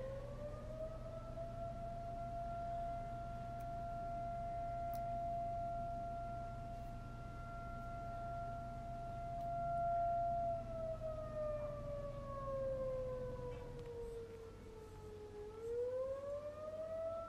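Federal Signal STH-10 electromechanical siren sounding the attack signal: it winds up to a steady high tone, holds it for about nine seconds, winds down for about five seconds, then winds back up near the end.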